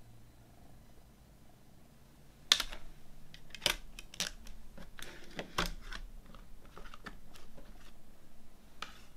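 Plastic CD jewel case being handled: a sharp snap about two and a half seconds in, then a run of smaller clicks and taps as the disc is pressed onto the hub and the case is shut.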